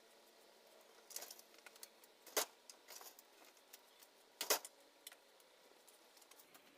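Faint footsteps on the porch floor: a few scattered soft clicks and knocks, the two loudest about two seconds apart.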